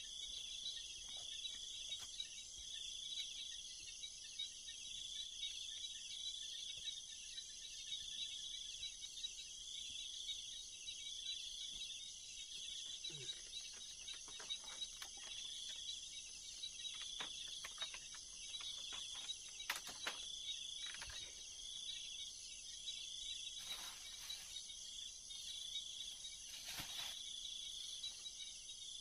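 Steady high-pitched insect chorus at dawn, with one pulsing chirp repeating about once a second. Faint scattered rustles and taps come in the second half as a mosquito net is taken down from a hut's sleeping platform.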